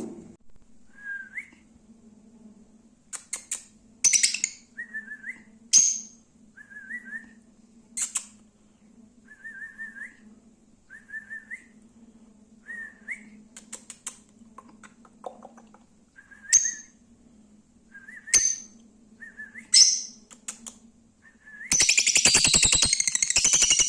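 Lovebirds calling: a string of short rising chirps about once a second, mixed with sharp high-pitched squeaks, then a loud burst of rapid chattering near the end. A steady low hum runs underneath.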